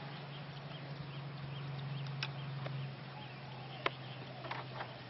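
A few small clicks of a hand tool and metal parts on a model helicopter's tail rotor hub, the sharpest about four seconds in. Under them run a steady low hum and faint bird chirps.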